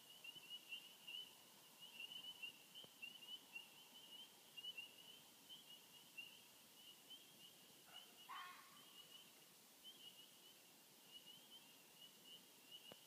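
Faint, steady high-pitched chirping from a chorus of night insects, with one short call from an unidentified animal about eight seconds in.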